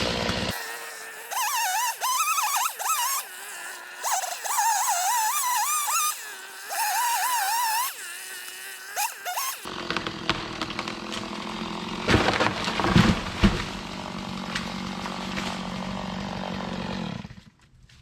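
Chainsaw cutting into a dead tree in repeated bursts, its pitch wavering up and down as the chain loads and revs. A little past the middle come several loud cracks and thuds, then the sound cuts off near the end.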